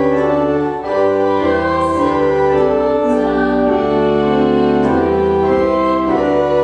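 Church organ playing slow, held chords, with a brief break between chords about a second in.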